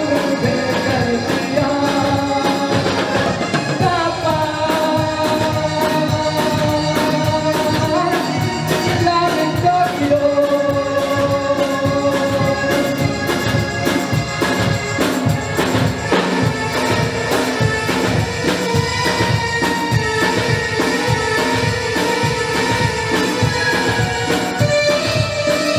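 A man singing a Hindi film song into a microphone, backed by a live band of keyboards and a drum kit keeping a steady beat.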